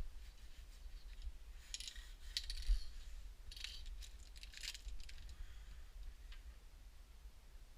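Light metallic clinking and rattling of metal parts being handled, in a few short clusters about two seconds in and again around four to five seconds in.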